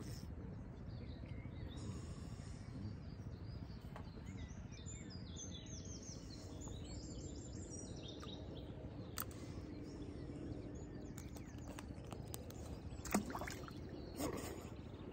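Birds singing over a steady low background noise, with a few sharp clicks; the loudest is a knock about two seconds before the end.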